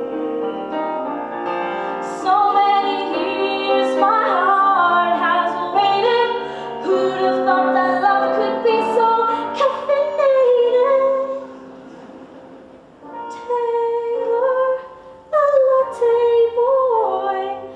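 A woman singing a comic musical-theatre song over piano accompaniment, with some long held notes with vibrato; the voice drops away briefly about two thirds of the way through, then comes back.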